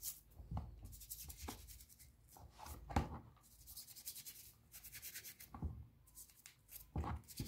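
Toothbrush bristles scrubbing a wet, soapy rectangular knob from a Sony TA-F7 amplifier, in short bursts of quick back-and-forth strokes. A few light knocks come from the knob and brush being handled, the loudest about three seconds in.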